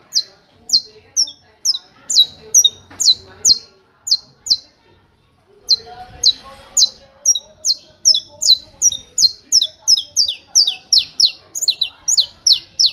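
Saffron finch (canário-da-terra) singing the 'martelo' (hammer) song: a long series of sharp, downward-slurred chips, repeated about three a second. After a pause of about a second near the middle, the chips resume faster, reaching about four a second.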